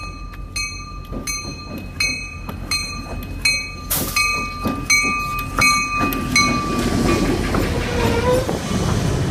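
Norfolk Southern GE Dash 9 locomotive's bell ringing steadily, about two strikes a second, as the locomotive gets ready to move. About six seconds in the bell stops and the locomotive's diesel rumble swells and grows louder.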